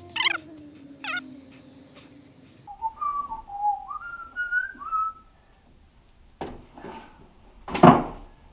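A person whistling a short tune, a run of notes stepping up and down, for about two and a half seconds midway. A brief loud scuffing noise comes near the end.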